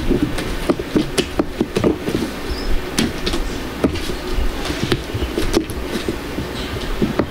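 A large mass of fluffy slime made from glue and shaving cream, squelching and popping with many small irregular crackles as it is squeezed and folded by hand.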